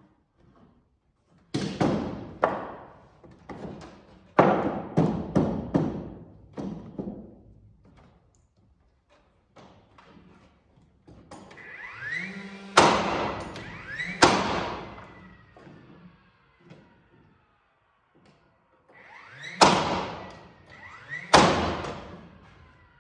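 A run of sharp knocks on the wooden floor truss through the first several seconds. Then a cordless nailer twice winds up with a short rising whine and fires with a sharp bang, two shots each time.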